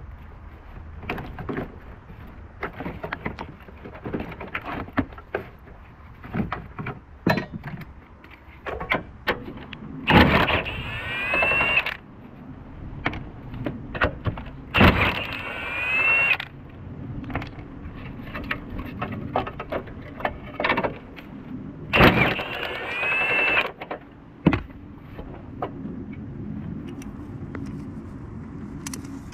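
Cordless power tool driving a 13 mm socket to undo the battery tray bolts. It runs in three short bursts, its motor whine rising in pitch each time, with clicks and rattles of hands on plastic connectors and tools in between.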